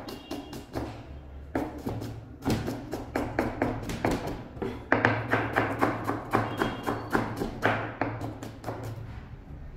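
Chef's knife chopping red onion on a plastic cutting board: quick runs of knife strikes, several a second, broken by short pauses.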